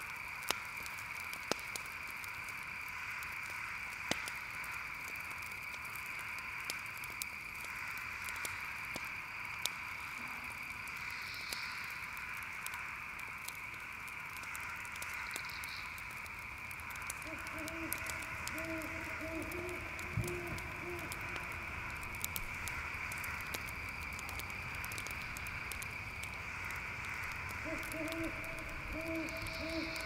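Night ambience: a steady chorus of crickets trilling, with a campfire crackling in scattered sharp pops throughout. Twice an owl gives a run of short, low hoots, first about seventeen seconds in and again near the end.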